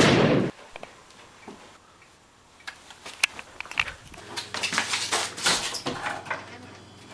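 A loud gunshot bang at the very start, dying away within about half a second. Then scattered knocks and clatter, with a cupboard door being opened near the end.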